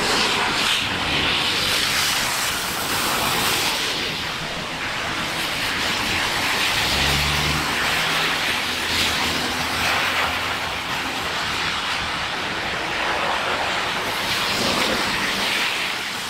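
Cars driving past on a rain-soaked street, their tyres hissing through the wet pavement and standing water; the hiss swells and fades as each car goes by, with a brief low engine hum about halfway through.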